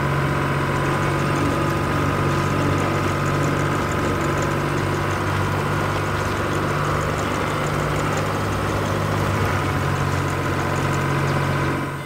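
Tractor engine running steadily, an even low hum with a faint rattle on top; it comes in suddenly and cuts off suddenly.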